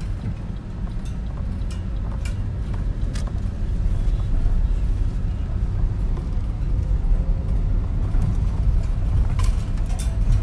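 Car cabin noise while driving: a steady low engine and road rumble heard from inside the car. A few short, sharp ticks stand out about two and three seconds in and again near the end.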